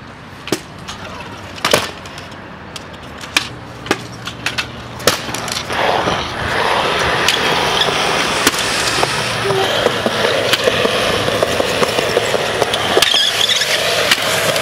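Kick-scooter wheels rolling on skatepark concrete. There are a handful of sharp clacks over the first five seconds, then a steady rolling rumble from about six seconds in.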